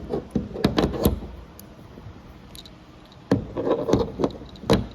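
Handling noise from plastic swim goggles and a zip tie: sharp clicks and knocks, in one cluster about a second in and another in the last two seconds, with light rustling between.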